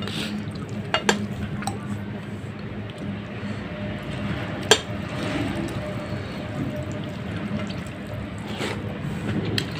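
Fingers squishing and mixing rice with fish curry on a plate, with extra gravy tipped from a plastic container onto it about halfway through, just after a sharp click. A steady low hum sits underneath.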